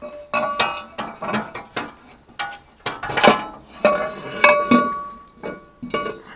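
Irregular metallic clanks and clinks, several ringing briefly, from a Bendix truck air dryer canister being handled against its steel mounting bracket.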